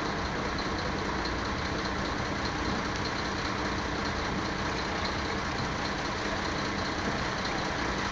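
An engine idling steadily under a constant hiss.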